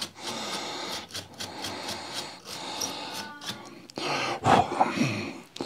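Small bristle brush scrubbing the dirt off an Acer laptop's cooling fan: irregular scratching and rubbing strokes of the bristles over the fan blades.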